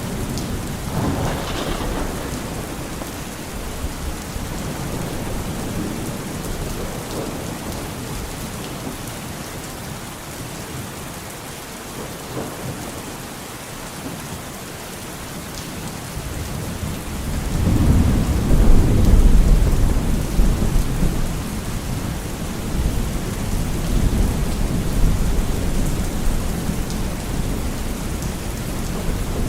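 Steady heavy rain hissing on surfaces through a thunderstorm. A short thunder crack sounds about a second in, and a loud, deep rolling rumble of thunder builds about halfway through, peaks, and fades slowly.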